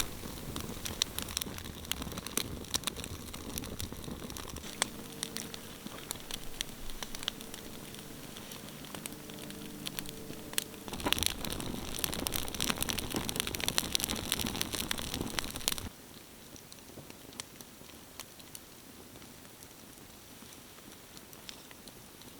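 Dense crackling and sharp popping, louder for a few seconds past the middle and then dropping suddenly to a quieter crackle about 16 seconds in. A faint low hum of a few steady tones sits under it for several seconds near the middle.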